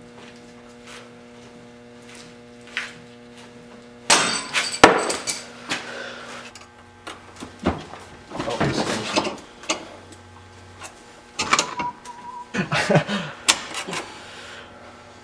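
A steady hum, then about four seconds in a loud knock and a sharp click, followed by irregular metal knocks and scrapes of hand tools being worked on an engine.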